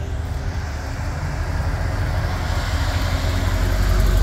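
A vehicle engine running close by, with a low steady rumble and a broad rushing noise that grow louder toward the end.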